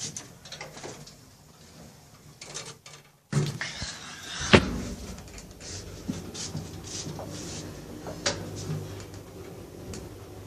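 Passenger lift: a single sharp clunk about four and a half seconds in, then a steady low hum from the moving lift car.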